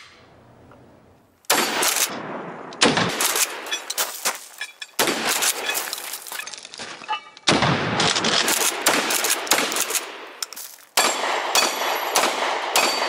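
Gunfire: several runs of rapid shots from a shotgun and a handgun, one after another in quick succession, beginning about a second and a half in, with short breaks between runs.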